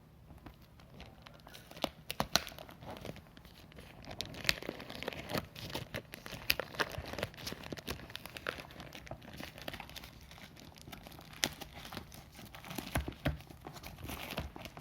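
Keyboard packaging being handled and unwrapped: plastic wrapping crinkling and rustling, with many irregular sharp crackles.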